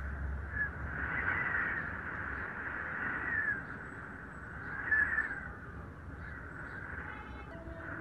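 Harsh bird calls: several drawn-out caws that swell and fade over a steady hiss.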